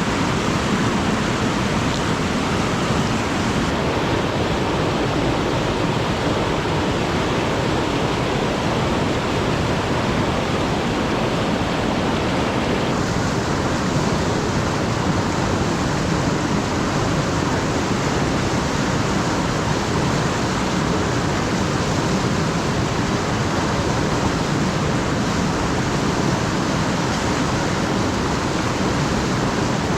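Alpine river water rushing steadily over its bed, a constant full-bodied flow.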